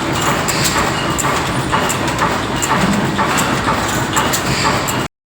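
1910 MAN air-blast diesel engine running slowly, with an even mechanical clatter of about two sharp beats a second. The sound cuts off abruptly near the end.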